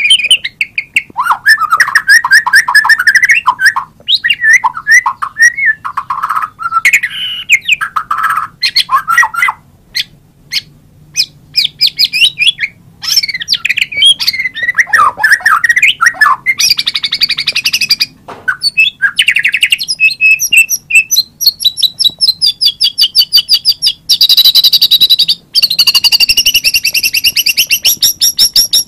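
White-rumped shama (murai batu) singing a loud, varied song of whistled phrases, rapid trills and rattling chatter, with short pauses between phrases. In the last third it becomes a fast run of high, repeated notes.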